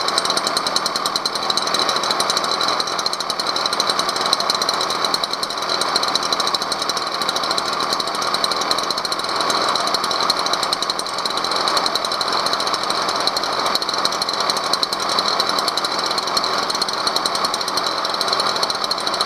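Stihl BR 400 backpack leaf blower's two-stroke engine running steadily at idle, with no revving, while its carburetor screws are being adjusted.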